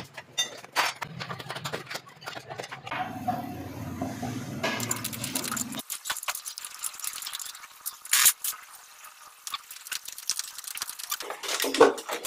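Scattered clicks and clinks of a socket wrench and metal parts being handled on an engine, with louder knocks about eight seconds in and again near the end. A low background hum stops about halfway through.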